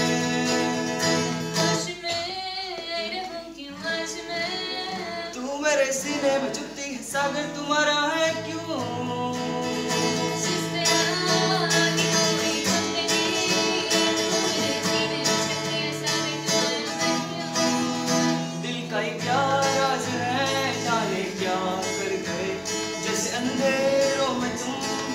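Acoustic guitar played with a voice singing over it, live and unamplified.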